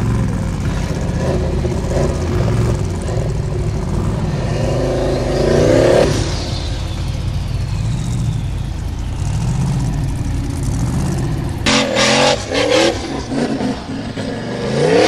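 Formula Offroad buggy engine revving hard and unevenly as its spinning tyres claw up a steep dirt hill. The revs climb sharply to a peak about six seconds in and again at the very end.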